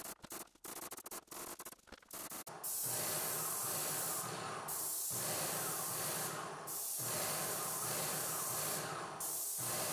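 Airless paint sprayer spraying paint onto a ceiling: short, broken spurts of hiss for the first couple of seconds, then a steady spray hiss that breaks off briefly about three times as the trigger is let go.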